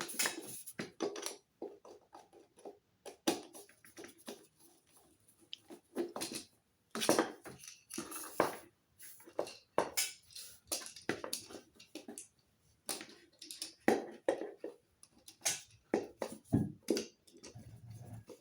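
Irregular small clicks, taps and scrapes of hands and tools connecting wires into the terminals of a plastic pull-cord light switch.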